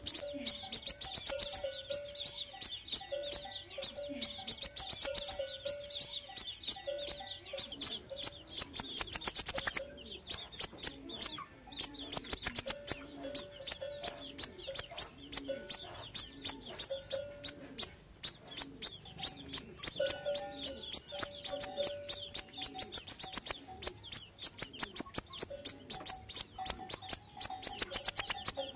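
Sunbird song as played for luring birds: fast runs of thin, high-pitched chirps, many a second, repeating almost without a break, with a lower short note recurring beneath them.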